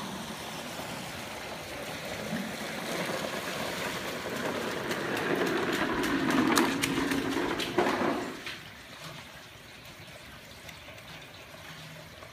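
Heavy rain pouring down as a steady hiss, louder with a few sharp ticks and splashes in the middle, then dropping to a quieter, even patter about eight and a half seconds in.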